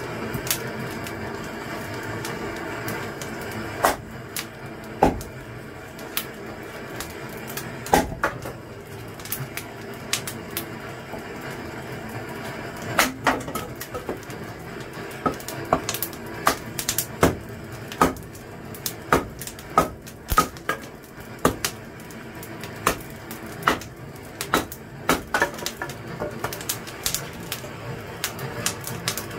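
Irregular sharp clicks and knocks, a few louder knocks in the first half and denser, quicker clicking later, over a steady low hum.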